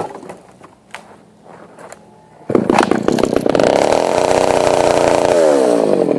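A chainsaw starts up suddenly about two and a half seconds in. It revs up to a steady high speed, then winds down near the end. Before it starts there are a few light handling clicks.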